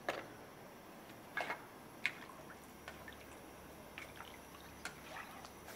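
Wooden spatula and a second utensil stirring chicken drumettes in braising liquid in a wok. Scattered light clacks of the utensils against the pan, the loudest about one and a half to two seconds in, with faint sloshing of the liquid.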